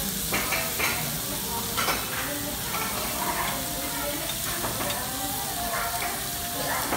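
Thin slices of beef sizzling steadily on a Korean BBQ dome grill plate, with a few short sharp clicks of metal tongs against the grill as the meat is moved.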